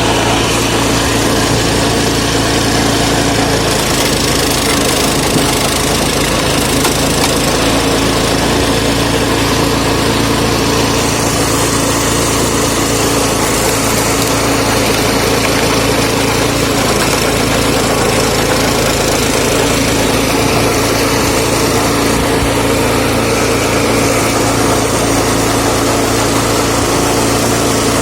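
Lifan 6.5 hp single-cylinder four-stroke petrol engine of a homemade screw-cone log splitter running steadily at constant speed.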